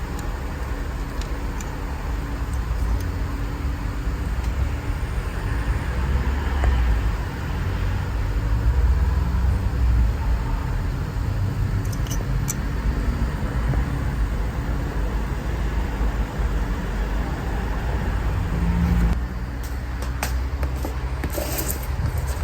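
Honda Civic's B-series four-cylinder engine running at idle, a steady low rumble with a hiss above it. About nineteen seconds in, the higher hiss cuts out abruptly while the engine keeps running.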